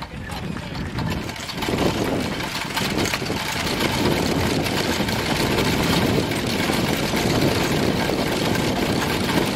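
Wind blowing across the microphone: a steady rushing rumble that grows stronger about a second and a half in.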